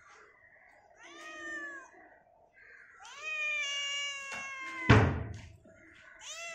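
Cat meowing: a short meow about a second in, then a longer drawn-out meow that ends in a loud thump, and another meow starting near the end.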